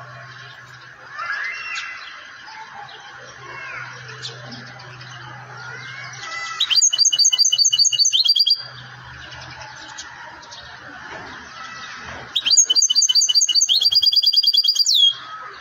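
Goldfinch singing: soft twittering, then two loud, rapid trills of quickly repeated high notes, one about six and a half seconds in lasting about two seconds, the other about twelve seconds in lasting about two and a half seconds.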